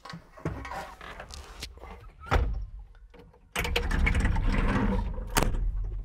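Knocks and thumps from an operator climbing into a tracked skid steer's cab and shutting the cab door, with one sharp thump a little over two seconds in. About halfway through, a louder low steady rumble starts and runs for about two seconds, with another thump near its end.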